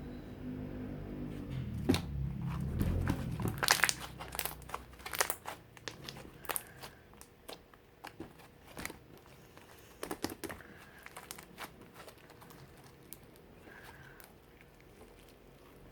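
Orange mixed slime being squished and stretched by hand, giving sharp popping and crackling clicks, thickest about two to six seconds in and again around ten seconds, then sparser.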